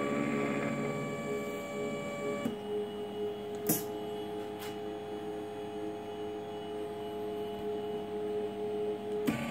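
Stepper motors of a Proffa 2000 gantry pick-and-place robot driving its axes: a steady whine of several tones that changes pitch abruptly about two and a half seconds in and again near the end. A sharp click comes about a second after the first change.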